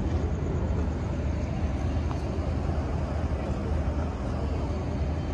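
Railway station platform ambience: a steady low rumble with an even background hiss and no distinct events.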